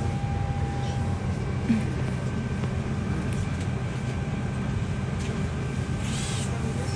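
Steady low rumble and hum of a parked airliner's cabin ventilation running, with a brief faint clatter about six seconds in.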